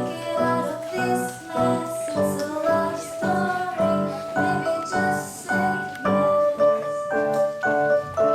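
Pop song with piano and singing, playing at a steady beat.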